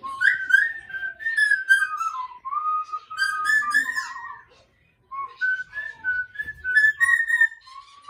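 A person whistling a short melody, with one brief break about halfway through.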